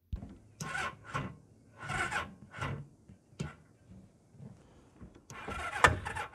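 Close rubbing and scraping handling noises on the camera microphone: about five short scuffs, then a longer, louder one near the end with a sharp knock in it. No engine is running.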